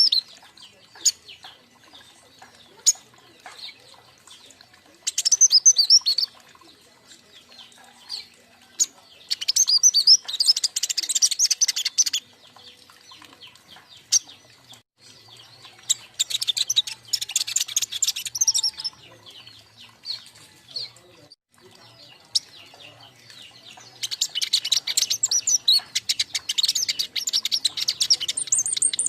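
Several young king konin birds singing in bursts of high, rapid twittering trills, several seconds each, with single sharp chips in the quieter stretches between bursts.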